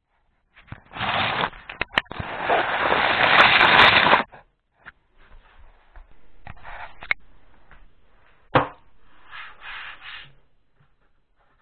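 Handling noise: the camera rubbing and scraping against cloth or a hand, loud for the first few seconds, then fainter rubbing with a sharp knock a little past halfway.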